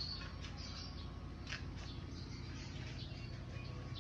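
Faint bird chirps in the background over a steady low hum.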